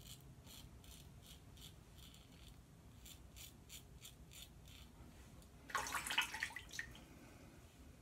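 Merkur Progress double-edge safety razor, fitted with a Gillette 7 O'Clock blade, scraping through lathered stubble in quick short strokes, three or four a second. About six seconds in comes one louder, rougher rasp lasting about a second.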